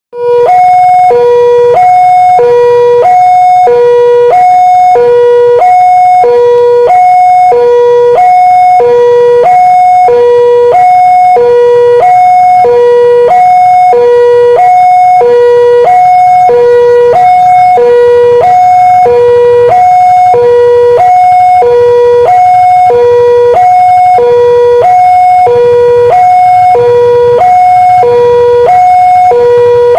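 Indonesian railroad crossing warning alarm, a loud electronic two-tone signal alternating steadily between a low and a high tone, a little over once a second per cycle. It is the warning that a train is approaching and the crossing gates are closing.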